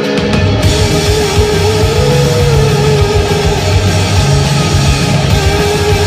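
Live rock band playing loudly on electric guitar, bass guitar and drum kit. The bass and drums come in right at the start, and a hiss of cymbals joins about half a second in.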